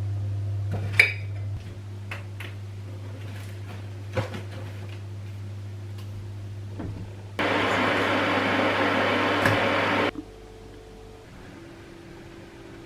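Kitchen sounds: a steady low electrical hum with a few sharp clinks of dishes or utensils. About seven seconds in, a loud rushing hiss starts abruptly and cuts off about three seconds later, leaving a quieter hum.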